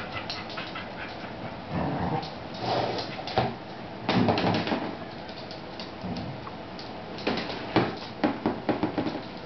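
A heeler dog shoving and tipping over a plastic laundry basket on a wooden floor: plastic scraping and knocking in uneven bursts, with a string of sharp knocks in the last couple of seconds, mixed with the dog's own noises.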